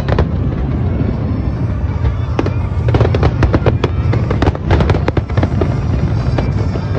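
A fireworks display with many aerial shells bursting in quick succession. A steady low rumble sits under a rapid run of sharp cracks, which come thickest in the middle.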